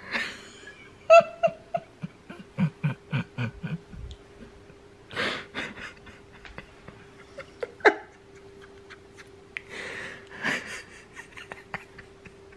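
Laughter in a run of short bursts, after a short high-pitched cry about a second in; breathy noises follow later. A steady hum from an electric fan runs underneath.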